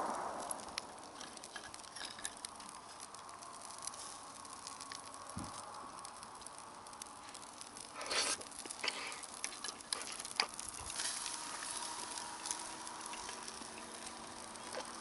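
Campfire crackling and sizzling, with many small sharp pops and a louder burst about eight seconds in.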